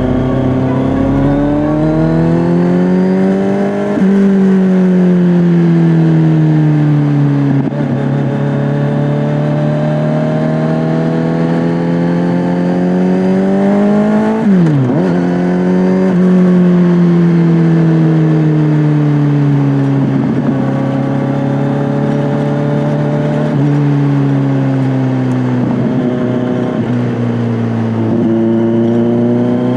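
Kawasaki Z900's inline-four engine through an SC-Project S1 aftermarket exhaust, heard while riding. Its pitch rises and falls with the throttle, with several gear changes, and about halfway there is a quick sharp drop in revs that comes straight back.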